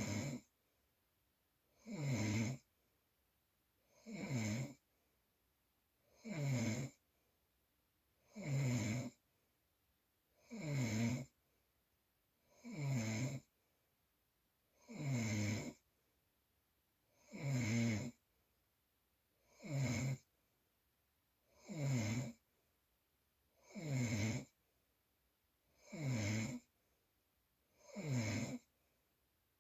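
Loud, regular snoring: one snore about every two seconds, each lasting about half a second, with near silence between breaths.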